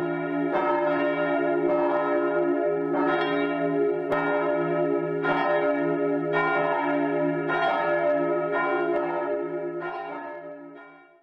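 Church bells ringing, a new stroke about once a second over their lingering hum, fading away near the end.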